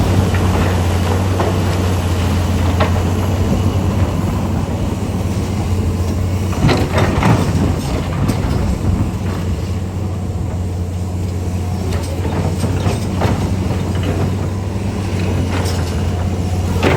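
Heavy diesel engines of a mining excavator and haul trucks running as a steady low drone. A burst of clattering about seven seconds in and scattered knocks near the end fit rock and metal at work during truck loading.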